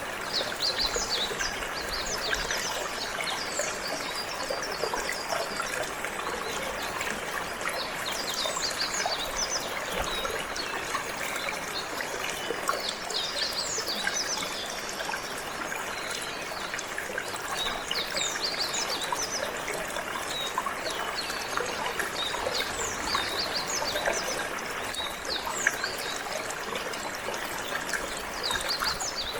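A steady stream of trickling, flowing water, with canaries singing in many quick, high chirps and trills throughout.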